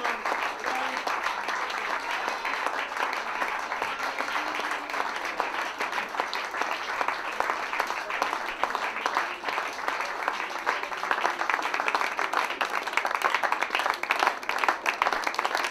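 Audience applauding, a dense steady clatter of many hands clapping, growing a little stronger in the last few seconds.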